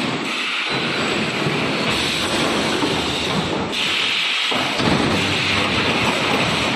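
Industrial machinery running with a loud, dense, steady noise and a low rumble.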